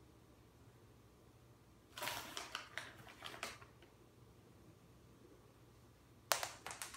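Two quick runs of clicks and ticks on a hard floor, about two seconds in and again near the end, the second starting with a sharp click: a cat chasing dry treats across a kitchen floor.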